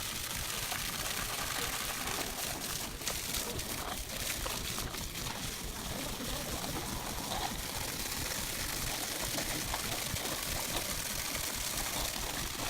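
Steady rushing noise with scattered light clicks and knocks between about two and five seconds in.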